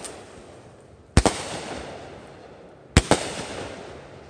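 Aerial fireworks going off: two sharp bangs about two seconds apart, each trailing off over about a second.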